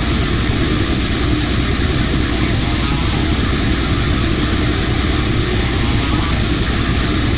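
Brutal death metal playing loud and without a break: heavily distorted guitars over very fast, relentless drumming.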